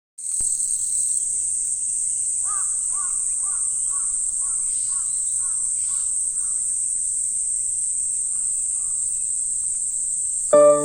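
Outdoor ambience of insects droning steadily at a high pitch, with a bird calling about nine times in quick succession a couple of seconds in. Right at the end, the town's wired public-address chime starts over its loudspeakers with loud electric-piano-like tones.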